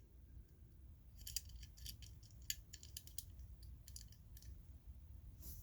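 A string of faint, sharp clicks and snips from a small hand cutter trimming the front axle of a 1:64 die-cast Ford GT-40.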